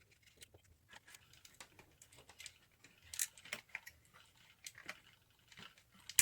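Light scattered clicks and scratches of small model locomotive body parts being handled and worked loose, with a slightly louder cluster about three seconds in and a sharp click at the end.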